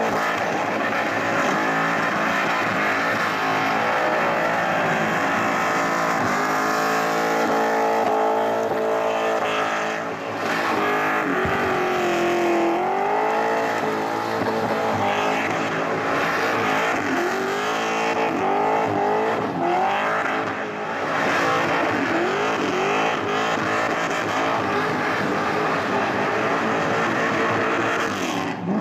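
Car engine held at high revs through a long burnout, its pitch wavering up and down as the throttle is worked, with the rear tyres spinning and squealing on the pavement. The revs drop briefly about ten seconds in and again about twenty seconds in.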